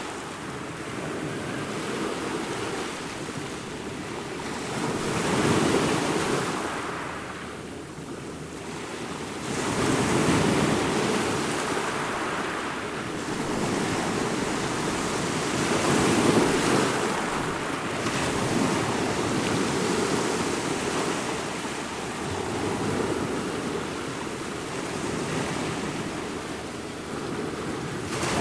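Ocean waves breaking and washing in, a steady rush that swells and ebbs every few seconds, with several louder surges.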